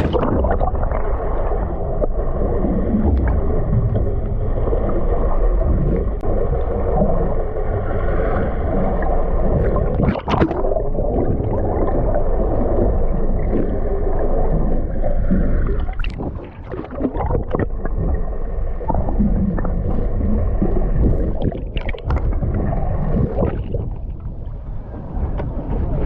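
Water sloshing and gurgling around a small fishing boat at sea, with a low steady hum and a few sharp knocks on the boat.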